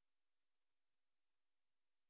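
Near silence: only a faint, even hiss, with no fireworks bangs heard.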